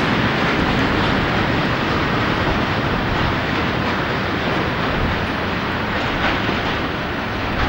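A diesel train running through the station, a steady loud rumble of wheels on rail.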